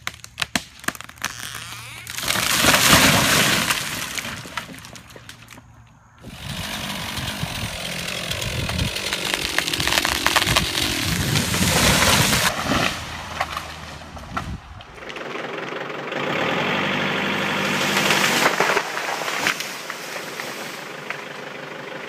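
Felled trees cracking and crashing to the ground: a short crash about two seconds in, then a longer crash of breaking wood and branches from about six seconds. A motor runs steadily toward the end.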